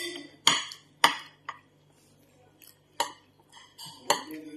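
Metal fork and spoon clinking and scraping against a ceramic dinner plate during eating: about five sharp clinks, the two loudest in the first second or so.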